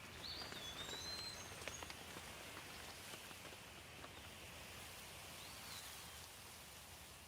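Light steady rain with scattered drips ticking on surfaces, and a bird giving short whistled chirps early on and again about five seconds in.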